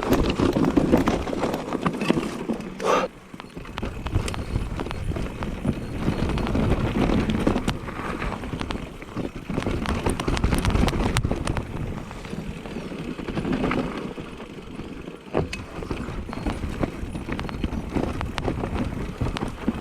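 Specialized Turbo Levo electric mountain bike riding down a rough trail: tyres rolling over dirt and rocks, with frequent clattering knocks and rattles from the bike over the bumps. The sound eases off briefly about three seconds in.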